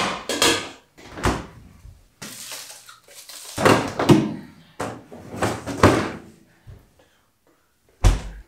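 A stainless steel pot with its lid set down on the stove with a sharp clank, then a fridge-freezer door and its plastic freezer drawer opened, with plastic food containers knocking and rustling as they are taken out. A heavy thump near the end as the freezer door shuts.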